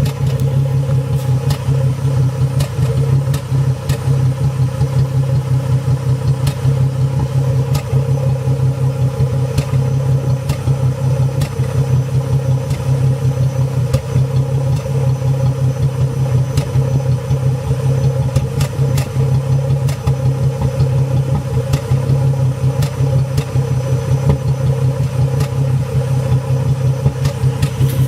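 2005 Ford Mustang's 4.0-litre V6 idling roughly with an uneven, pulsing beat and irregular sharp pops. This is the idle sagging into the 600s rpm without the air conditioning on, despite new spark plugs, a new fuel filter and a cleaned throttle body and MAF.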